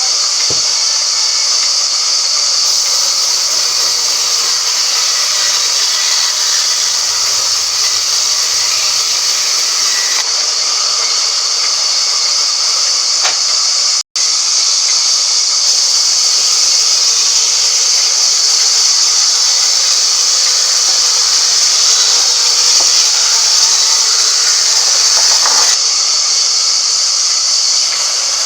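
Band sawmill running, a loud steady high-pitched hiss from the saw, with a brief dropout about halfway through.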